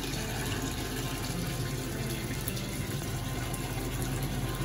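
Water running steadily from a tap into a bathtub, a constant rushing that cuts off suddenly at the very end.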